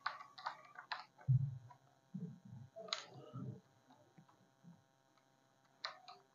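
Faint clicks, knocks and soft rubbing of a duster on a whiteboard as the board is wiped, with a dull thump about a second in.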